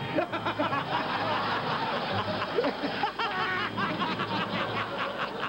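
Several people laughing and chattering over one another, with a burst of laughter a little past the middle.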